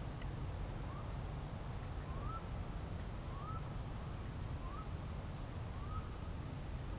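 A short, rising chirp-like call repeated about once a second, over a steady low rumble.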